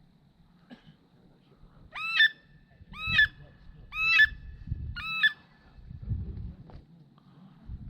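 Duck call blown in a series of four loud, evenly spaced quacks, about a second apart, to draw in passing ducks.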